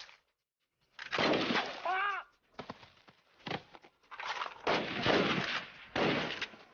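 Rifle and machine-gun fire in a dramatised battle: silence for about a second, then repeated loud volleys, with a short wavering pitched sound about two seconds in.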